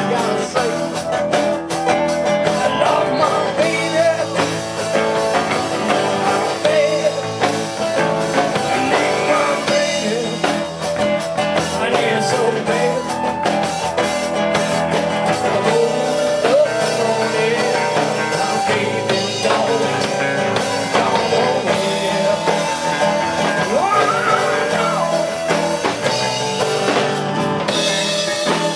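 Live rock band playing an original song: acoustic guitar, bass guitar, flute and drum kit, with a man singing lead.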